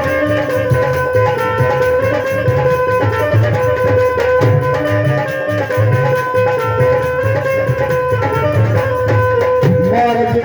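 Instrumental break in a live Punjabi devotional folk song: a melody of long held notes over a steady hand-drum beat, played through a PA system.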